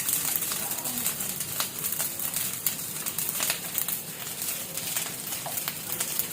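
Fried rice sizzling in a frying pan, with scattered clicks of stirring.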